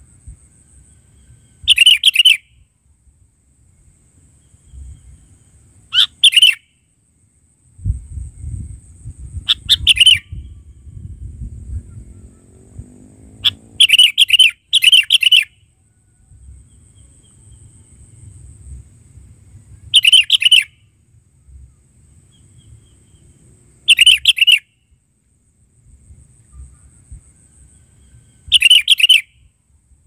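Sooty-headed bulbul singing short, loud whistled phrases, eight in all, spaced roughly four seconds apart. A low rumble comes in about a third of the way through and lasts several seconds.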